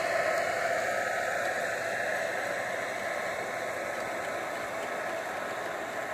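G scale model freight train rolling along the garden railway track as its boxcars pass, a steady noise that slowly fades as the train moves off.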